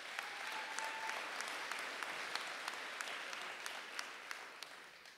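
Audience applauding, with individual sharp claps standing out; it fades out near the end.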